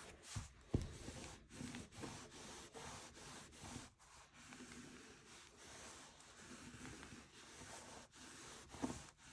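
Glued paper being pressed and rubbed down onto a journal page: faint, irregular rubbing strokes on paper, with a single knock about a second in.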